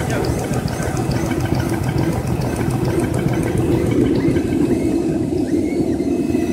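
Automatic facial tissue folding machine running: a steady, loud mechanical din, with a fast light clicking over the first two seconds or so.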